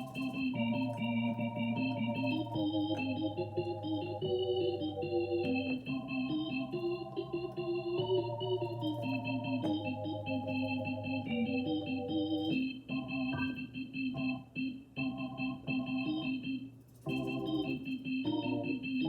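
Roland FP-30 digital piano playing an organ tone: sustained chords over a held bass note, changing every second or two. In the last third the chords become shorter and separate.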